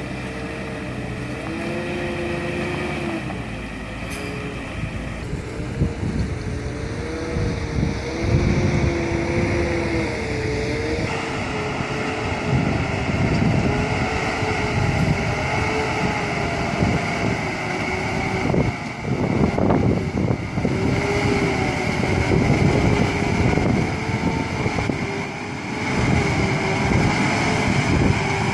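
Diesel engine of a Hino truck overloaded with marble boulders, working hard at low speed as it crawls over a rocky track, its pitch wavering up and down with the revs. The sound changes abruptly a few times where the shots are cut together.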